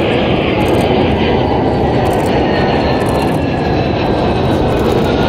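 F-35A jet fighter's Pratt & Whitney F135 turbofan running loud and steady with a faint high whine as the jet rolls out along the runway after touching down.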